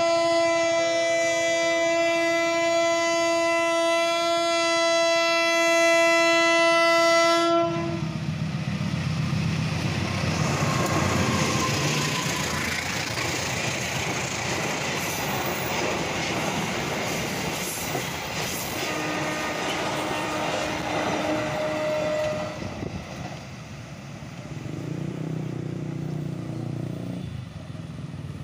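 Diesel passenger train's horn sounding one long steady blast for about eight seconds, then coaches passing close with wheels running over the rail joints. Near the end the train sound gives way to a lower rumble of motorcycle engines at a level crossing.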